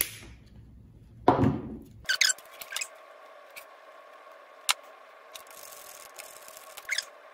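Side cutters snipping through reader pigtail wires: a sharp snip at the start and a louder one just over a second later. After that come a few light clicks and taps of wires and a small screwdriver at the controller's screw terminals, over a faint steady hum.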